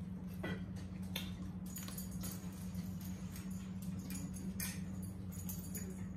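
Eating at a table: scattered light clicks and taps of forks on plates, with chewing and mouth sounds, over a steady low hum.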